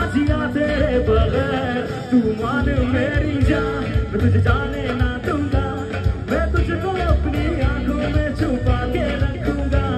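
Live band playing through a PA system: a singer's voice over electric guitars, bass and drums.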